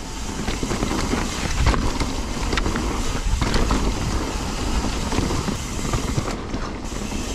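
Mountain bike riding fast down a dirt and rock trail: steady rough noise of tyres on the ground and rushing air, with a heavy low rumble and a few sharp knocks as the bike hits bumps.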